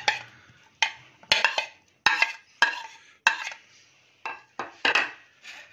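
Steel spoon scraping and clinking against a plate, about nine sharp strokes with short scrapes, as chopped onion is pushed off the plate into a bowl of yogurt.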